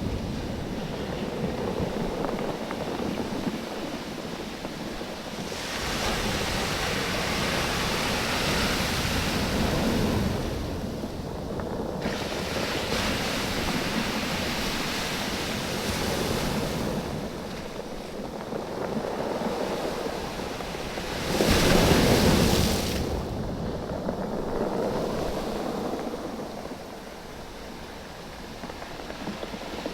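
Waves surging in and draining back over a beach of rounded oval stones, the stones rolling and clattering against one another as the water moves. The wash rises and falls every few seconds, with the loudest surge about two-thirds of the way through.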